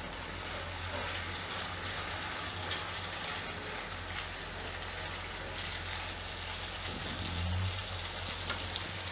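Sliced potatoes frying in oil in a nonstick wok, an even, steady sizzle, stirred now and then with a silicone spatula.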